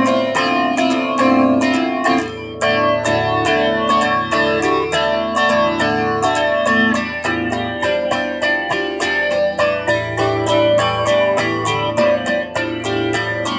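Solo guitar picking a melody, with quick plucked notes throughout.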